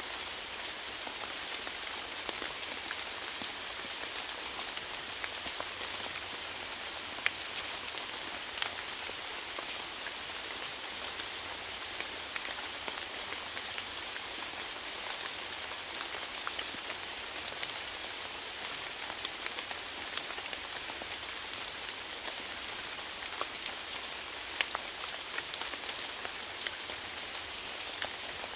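Steady rainfall, an even hiss of falling rain with many separate drops ticking sharply on a surface.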